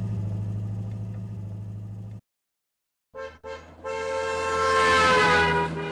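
Car engine running steadily and fading out; then, after a second of silence, a car horn: two short toots and a long blast whose pitch drops slightly near its end.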